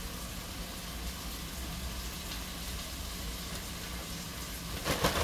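Flour-dredged beef liver frying in hot oil in a cast-iron skillet, a steady sizzle over a low hum. Just before the end there is a sudden louder burst of crackling rustle.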